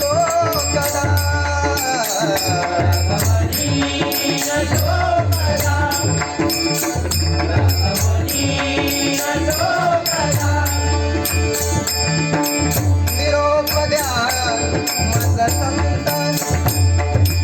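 Marathi bhajan singing in a Bhairavi: a singer's wavering melodic voice over a steady beat of jingling, rattling percussion and a low drum.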